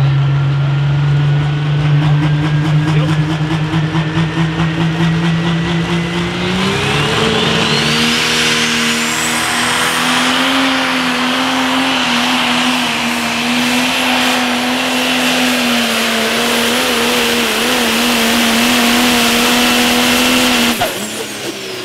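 A turbocharged diesel Pro Stock pulling tractor engine (Case IH Magnum) builds boost against the sled, with its turbo whistle rising. About six and a half seconds in it goes to full throttle, and the whistle climbs steeply as it holds high revs through the pull. Near the end the engine cuts back sharply and the turbo whine falls away.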